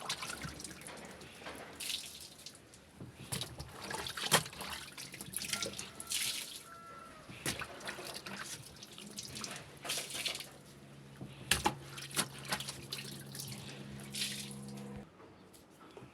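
Water splashing and dripping in irregular bursts. From about nine seconds a low steady hum joins in and cuts off suddenly near fifteen seconds.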